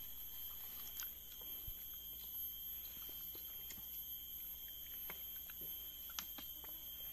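Forest insects drone steadily at a high pitch, with a few faint clicks and some chewing as grilled fish is picked apart by hand and eaten.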